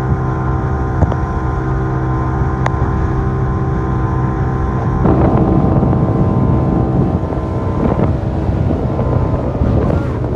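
A fishing boat's engine running steadily with a constant hum. About halfway through, wind on the microphone and rushing water grow louder over it.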